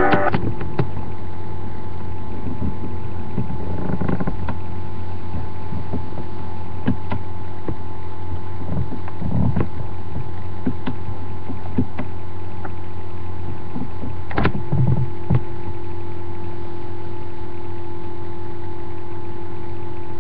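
Steady electrical hum and hiss from a webcam microphone, with a few faint clicks and a sharper click about two-thirds of the way through.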